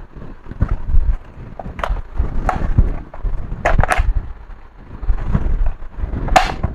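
Irregular clicks, taps and knocks of a plastic laptop casing and small screws being handled during reassembly, with a sharper click about four seconds in and again near the end.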